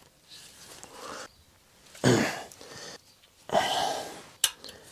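Allen key work on the cover bolts of a Yamaha Virago 535 engine: short scrapes and rasps, a louder brief sound falling in pitch about two seconds in, and a sharp click near the end.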